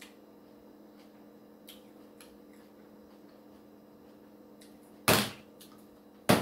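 A glass bowl and spoon handled while tasting food, with a few faint light clicks over a steady low hum. Two loud knocks come about five seconds in and just after six seconds; the second is the glass bowl being set down on the countertop.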